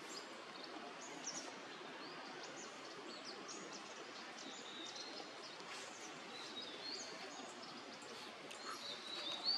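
Forest ambience: a steady background hiss with many short, high-pitched bird chirps and calls scattered throughout, one louder call near the end.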